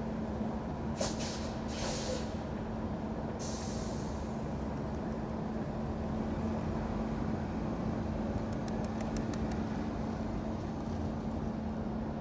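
City street traffic with a continuous low rumble and a steady hum. Three short, sharp hisses come in the first four seconds, and a quick run of light ticks comes a little past the middle.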